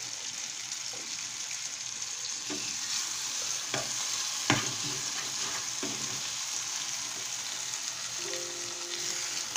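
Egg and tomato curry sizzling steadily in a metal pan on a gas stove, with a spoon stirring through it and a few sharp clicks as it knocks against the pan.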